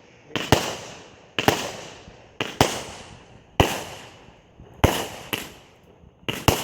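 200-gram consumer firework cakes firing: sharp bangs about once a second, often in quick pairs, each trailing off in a short hiss.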